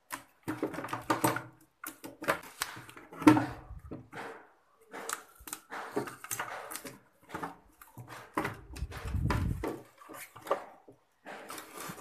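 Hands handling an RO booster pump and its plastic housing: scattered clicks and knocks as the pump is pressed onto its adhesive tape and pushed into place, with a longer rubbing noise about nine seconds in.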